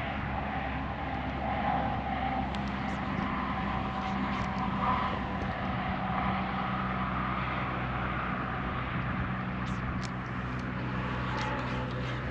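A steady low mechanical hum over a broad hiss. Its pitch shifts about halfway through, and a few faint clicks sound over it.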